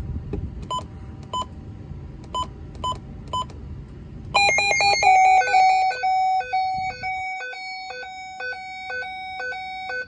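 Midland weather alert radio: five short key beeps as its buttons are pressed, then about four seconds in its alert test goes off. The alarm is a loud electronic run of rapidly stepping tones that settles into a repeating beep pattern.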